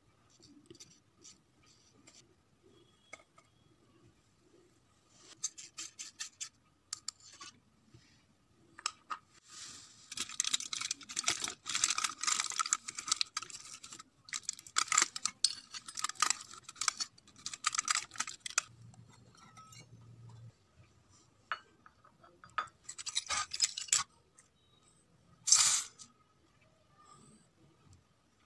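Aluminium foil crinkling and rustling in repeated bursts as it is pressed and folded around a small steel tin, loudest in the middle, with a brief louder burst near the end. Before that come faint light scraping sounds from a small spoon in a tiny metal sieve.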